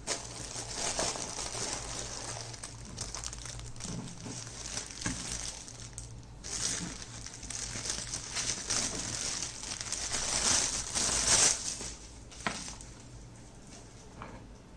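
Clear plastic packaging bag crinkling and rustling as a miniature brass fan is lifted from its cardboard box and unwrapped, loudest about eleven seconds in. A single light click follows, and then the rustling dies down.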